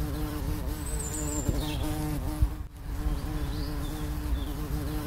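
Honeybees buzzing around open hives, a steady hum. The bees are drawn out by the smell of freshly poured sugar syrup in the feeders. The hum dips briefly about halfway.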